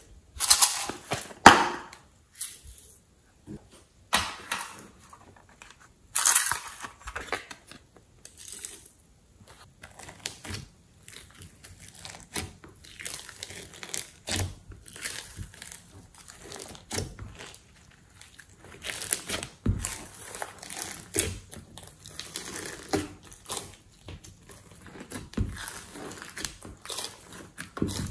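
Small plastic packets crinkling and tearing, loudest in the first few seconds, then hands pressing, squishing and folding glitter- and sequin-covered slime, with many short sticky crackles and pops.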